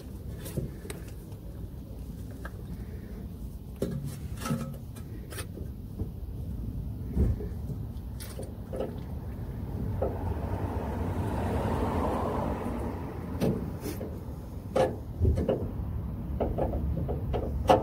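Scattered plastic knocks and clicks from a hand-held oil syringe being handled at a gearbox fill hole, over a steady low rumble. A hiss swells and fades about ten seconds in.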